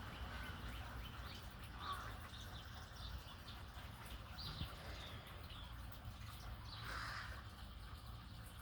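Crows calling faintly: a whining call rather than the deeper caw, with two fuller calls about two seconds in and near the end, over a low steady rumble. The whining is what the owner takes for young crows begging for food.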